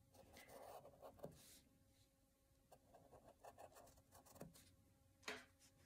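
Faint scratching of a pencil on paper as lines are drawn, in short, uneven strokes.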